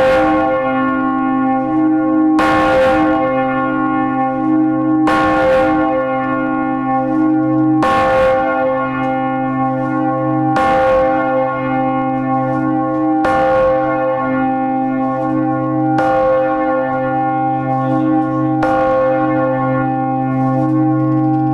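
The large church bell 'Pokój i Pojednanie' (2.5 tonnes, tuned to c) swinging in full peal, heard close up in its bell chamber. Its clapper strikes about every two and a half seconds, nine times, each stroke a bright clang over a deep hum that rings on between strokes.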